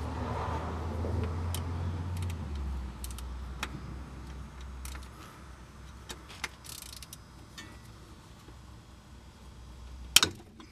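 Wrench clinking and clicking against the fill plug of a 2004 Honda CR-V's rear differential as the plug is loosened, with one sharp, loud metallic click near the end. A low hum runs under the first couple of seconds.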